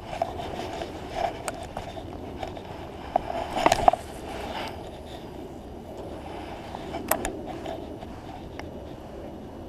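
Handling noise on a body-worn camera: clothing rubbing and knocking against the microphone, with a loud cluster of knocks about three and a half seconds in and a single sharp click about seven seconds in.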